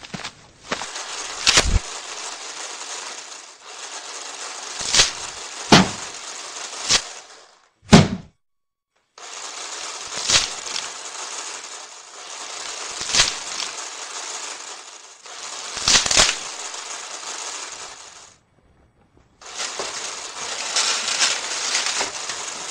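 Animation sound effects: a steady hiss broken by sharp knocks and cracks every second or two. The loudest is a low thump about a third of the way in. The hiss breaks off twice into brief silences.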